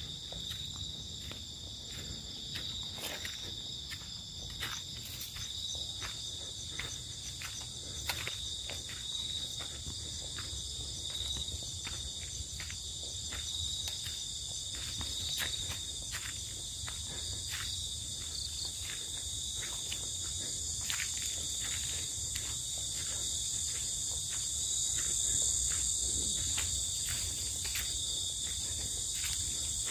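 Evening chorus of insects, a steady high trilling in several layers that swells a little near the end, with short clicks repeating about once a second.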